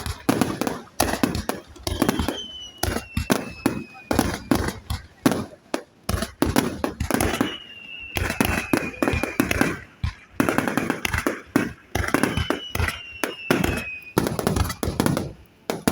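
Fireworks display: waves of dense, rapid crackling from bursting shells, with four long whistles that slide down in pitch.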